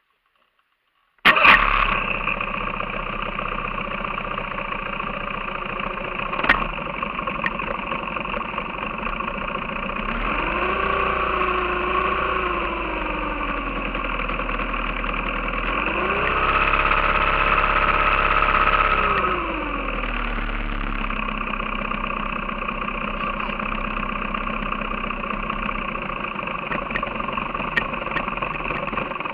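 15 hp outboard motor starts up about a second in and runs at idle, revved up twice and eased back down before settling at a steady idle.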